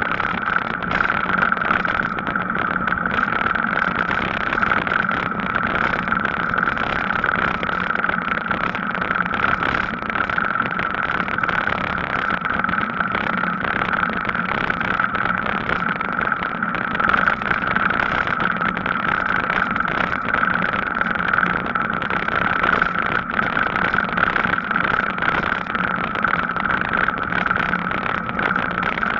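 Steady riding noise of a Gazelle Paris C7 e-bike rolling along a tarmac cycle path, an unchanging hum with no breaks.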